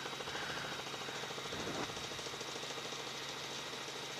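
News helicopter cabin noise as heard through the onboard audio feed: steady rotor chop and engine noise with a constant high whine, and a brief louder burst near the middle.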